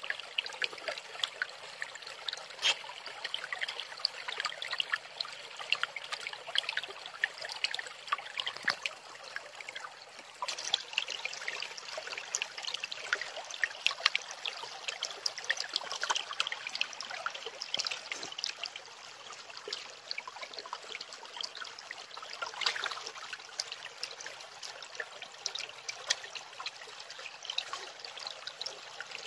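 Shallow forest stream trickling and babbling over rocks, a steady hiss with many short, sharp clicks through it.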